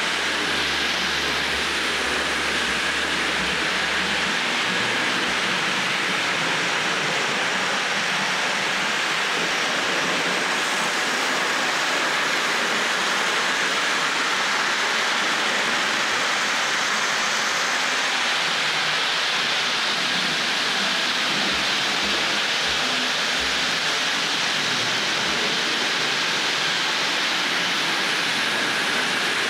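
OO-gauge Hornby model train running on its track: two Class 5 model steam locomotives hauling a long rake of coaches, with a steady, even rushing whirr of the motors and the wheels on the rails.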